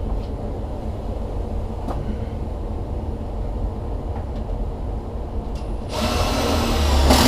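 Gas furnace running with a steady low rumble from its blower and airflow. About six seconds in, a loud harsh noise starts and grows to the end.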